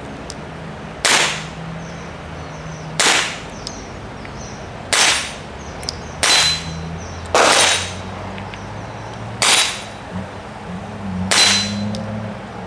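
Seven gunshots from other shooters on the range, roughly one every one to two seconds, each a sharp crack with a short ringing tail, over a low steady hum. Between them come a few faint metallic clicks, like cartridges being slid into a revolver's cylinder.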